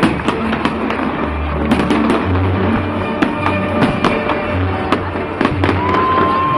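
Fireworks going off overhead in many irregular sharp bangs and crackles, with music playing underneath.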